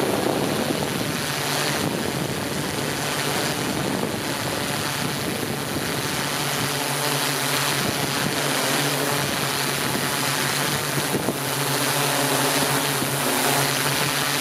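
Steady hum of a camera drone's motors and propellers, an even drone with a constant hiss over it.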